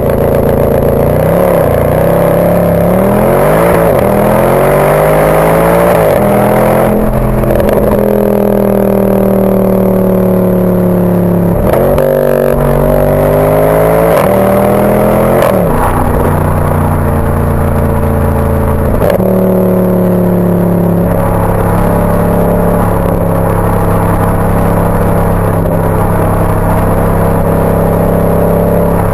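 Mercedes-AMG exhaust recorded right at the tailpipes while driving. The engine note rises and falls with the throttle, jumping in pitch at several gear changes, then holds a steady cruising tone in the second half.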